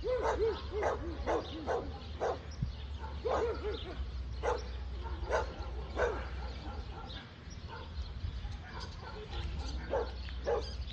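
A dog barking repeatedly, in quick runs of short barks for the first six seconds or so, then fewer and farther apart. A steady low rumble runs underneath.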